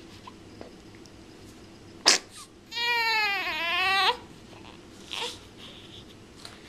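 Three-week-old newborn crying: a sharp knock about two seconds in, then one high wail of over a second that dips in pitch and climbs again at its end.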